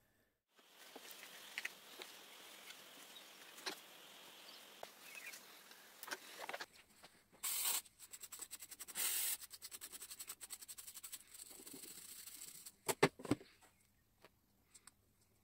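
Aerosol cleaner spray can hissing in two short loud bursts, between stretches of fainter hiss and a rapid run of short scratchy pulses, with a few sharp clicks near the end.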